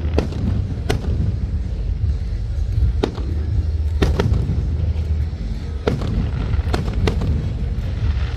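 Fireworks going off: about ten sharp cracks and bangs at irregular intervals, some in quick pairs, over a steady low rumble.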